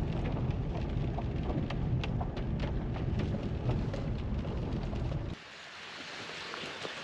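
Low rumble of a car in motion heard inside its cabin, with raindrops ticking on the windshield. About five seconds in it cuts abruptly to steady light rain falling outdoors, with scattered drops pattering.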